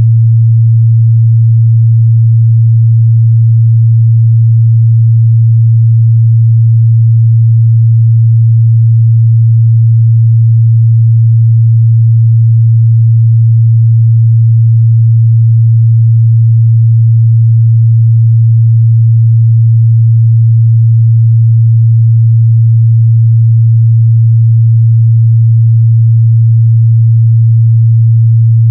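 A steady, loud 114 Hz sine-wave test tone: one low, unchanging pure hum held without a break.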